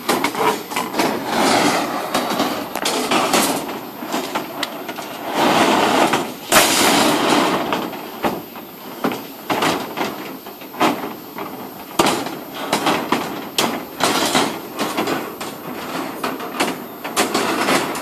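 Steel reinforcing bars in a slab's rebar mesh clanking and rattling against each other and the plywood formwork as workers step on and shift them: a run of irregular metallic knocks and clicks.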